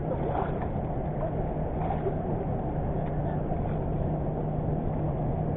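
Boat engine running steadily at a constant pitch.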